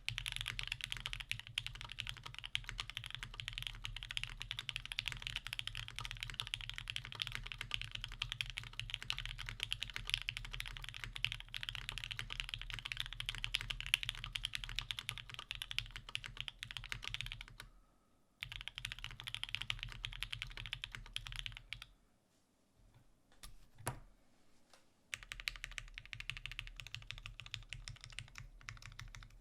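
Steady stream of keystrokes on a custom mechanical keyboard with lubed Gateron Minks linear switches (Ink switches with milky tops), a polypropylene plate, an o-ring mount and GMK keycaps. The typing breaks briefly about 18 seconds in, then stops for about three seconds, with a single keystroke in that gap.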